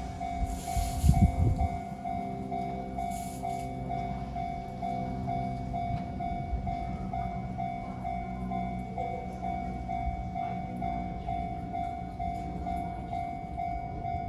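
Japanese level-crossing alarm bell ringing steadily at about two strokes a second, over the low rumble of an Enoden electric train passing over the crossing. A loud low clatter with a hiss comes about a second in.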